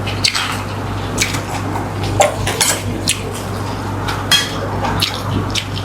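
Spoon clicking and scraping against a dish at irregular intervals while eating, over a steady low hum.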